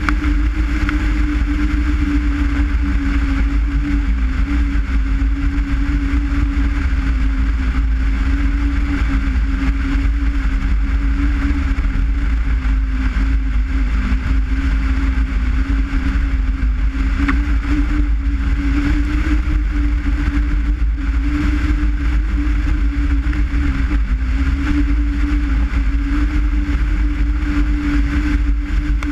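Skoda Forman car engine running at a steady cruise, its drone holding a nearly level pitch that wavers only slightly, over a heavy deep rumble of road noise.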